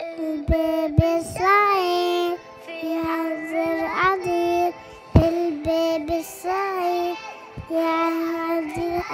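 A young child singing long held notes that bend and waver, over music with a few sharp percussion hits.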